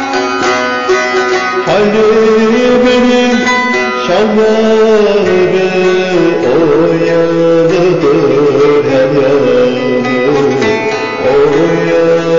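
Turkish folk song: a plucked string instrument playing a melody, with a voice singing from about two seconds in.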